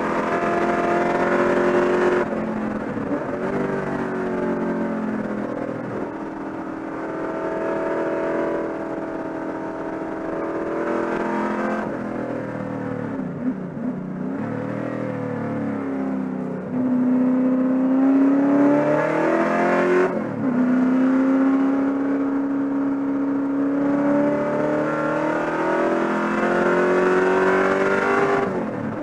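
Holden Commodore race car's V8 engine at racing speed, heard from inside the cabin: the pitch climbs under full throttle and drops sharply at each upshift, several times. Midway the revs fall and waver as the car brakes and shifts down, then climb again.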